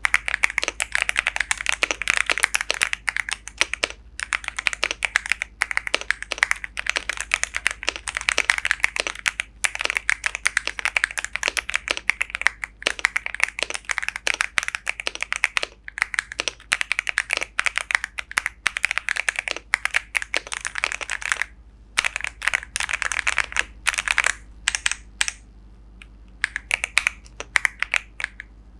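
Ajazz AC100 aluminum-body mechanical keyboard being typed on fast: a dense run of key clacks broken by a few short pauses, turning into shorter, scattered bursts of keystrokes near the end.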